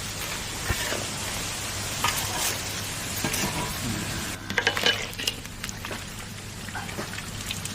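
Food sizzling as it fries in hot oil, with a few sharp clinks of a cooking utensil a little past halfway.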